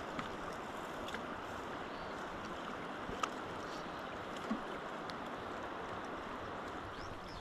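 River water flowing and rippling along a pebble shore: a steady, even rush, with a few faint clicks.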